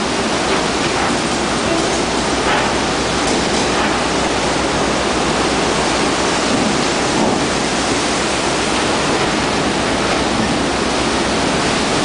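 Heavy seas breaking and washing over the hull and deck of a jack-up drilling rig under tow: a loud, steady rush of surging water and spray.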